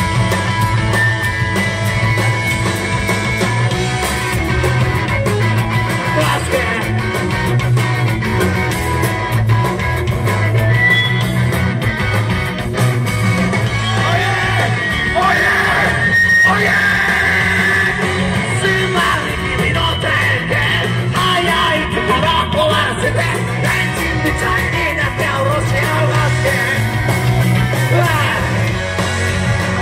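Live rock band playing: electric guitar and drums with yelled singing.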